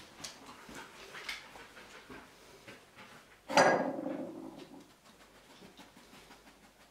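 A dog's claws clicking and tapping faintly on a parquet floor as it moves about searching. About halfway through comes one much louder sudden sound that fades over about a second.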